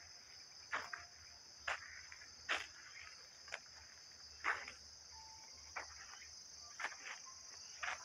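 Footsteps on a dirt forest path littered with dry leaves and pine needles, about one step a second, over a steady high-pitched insect chorus.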